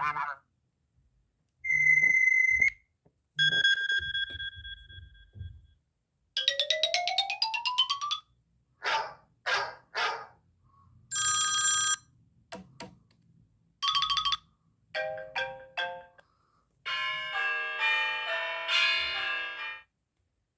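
A run of short iPhone ringtones played one after another: a steady beep, a ringing tone that fades away, a rising glide, three quick chirps, a buzzy tone, and a short chiming melody near the end.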